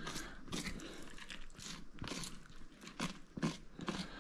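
Knife cutting and scraping under the hard, scaly skin of a longnose gar as it is skinned: a run of short, irregular strokes, several to a second in places.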